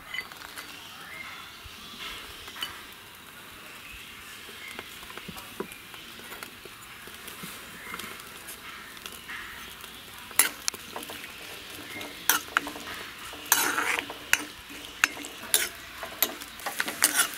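Chopped coconut frying in ghee in a kadai, a steady sizzle. From about ten seconds in, a steel spoon scrapes and clinks against the pan as the pieces are stirred.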